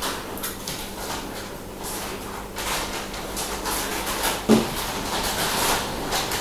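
Rustling, handling noises and light knocks over a steady low electrical hum, with one dull thump about four and a half seconds in.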